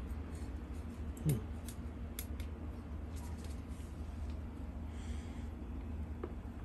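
Hands and a small knife working loose potting mix of sawdust and compost in a plastic pot, with faint scraping and rustling and a few light clicks, over a steady low hum.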